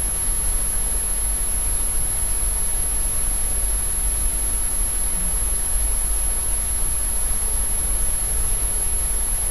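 Steady hiss from the recording's background noise, with a low electrical hum and a faint thin high-pitched whine running under it.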